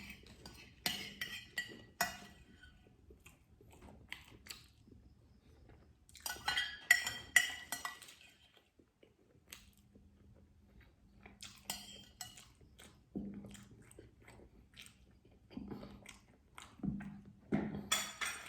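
A metal spoon clinking against a dish several times, with a quick run of ringing clinks about six to eight seconds in, and quiet chewing in the gaps.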